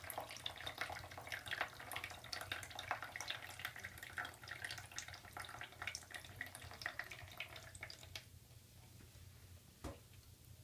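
Water dripping and trickling through holes from one stacked plastic cup into the cup below, a dense patter of drops. The dripping thins out about eight seconds in, with a single clear drop near the end.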